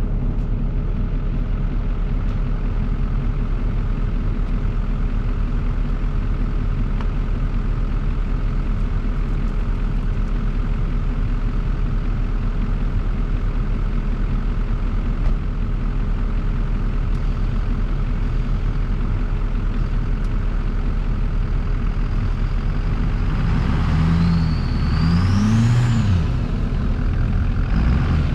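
Large engine of an 800-plus-horsepower farm machine running steadily, then revved up and down twice near the end with a rising whine, as the machine is worked loose from ground it is frozen to.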